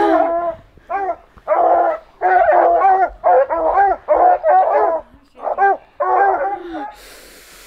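Hunting hounds baying, a run of drawn-out calls that rise and fall in pitch, one after another about every half second to second. The baying stops near the end, and a faint rustling hiss follows.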